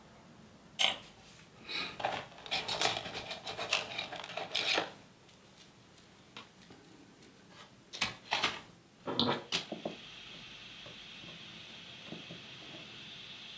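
Clicks, scrapes and rubbing of hand tools and parts as a motorcycle battery is taken out, in two bursts of handling. A faint steady hiss starts about ten seconds in.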